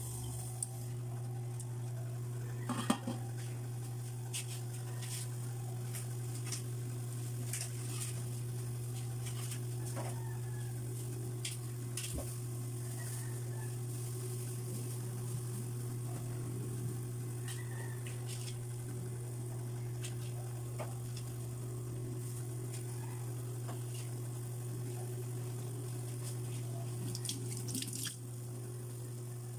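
Broth simmering and bubbling in an aluminium wok around blocks of rice vermicelli, with scattered faint crackles over a steady low hum. A few sharp metal clinks come about three seconds in.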